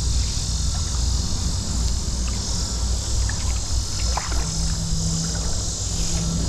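Outdoor creek ambience: a steady high-pitched insect drone over a fluctuating low rumble of wind on the microphone. A low steady hum comes in about halfway through.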